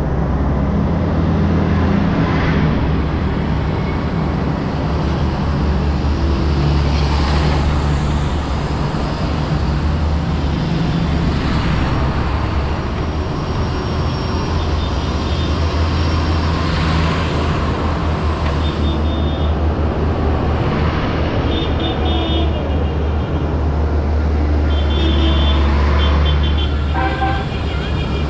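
A procession of large diesel farm tractors driving past one after another at close range, their engines a deep, continuous drone. In the second half, short horn toots sound several times.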